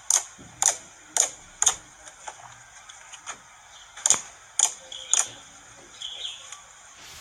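Slime being pressed and poked, its trapped air bubbles popping with sharp crisp clicks, about two a second in two runs, with softer ticks in between.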